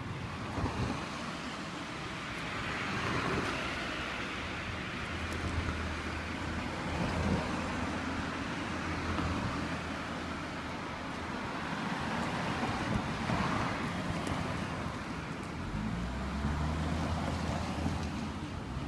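Road traffic: vehicles passing along the street, a steady rushing noise that swells and fades several times, with a low engine hum underneath at times.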